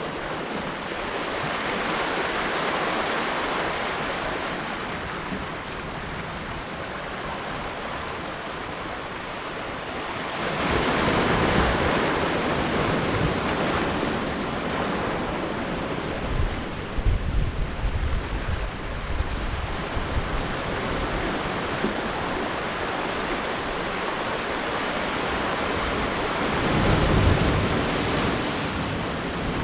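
Ocean surf washing in, a steady rush that swells about a third of the way in and again near the end. Wind buffets the microphone with uneven low rumbles about halfway through.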